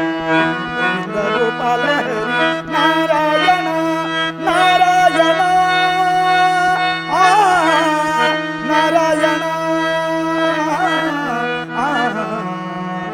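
Harmonium playing an instrumental passage: a reedy melody moving over steady held drone notes.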